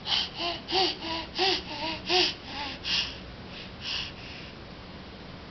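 Baby laughing in a run of short, rhythmic laughs about three a second, trailing off after about three seconds with one last laugh a second later.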